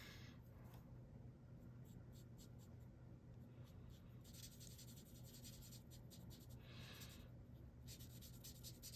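Faint scratching of an alcohol marker's tip stroking across cardstock as flowers are coloured in, in longer and shorter stretches, over a low steady hum.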